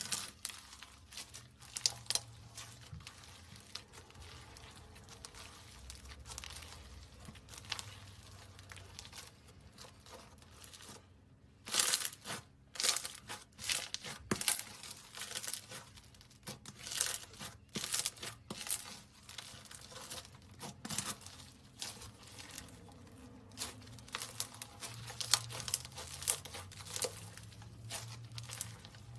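Slime being squeezed and stretched by hand, giving off irregular sticky crackles and pops, with a denser, louder run of crackling about twelve seconds in.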